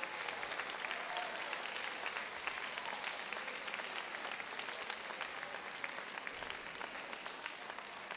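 Audience applauding, the dense clapping slowly thinning out and getting quieter.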